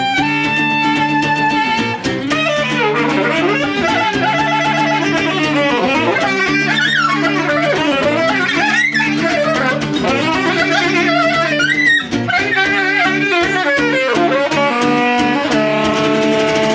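Live band playing an instrumental passage: a wavering lead melody with quick runs over sustained chords.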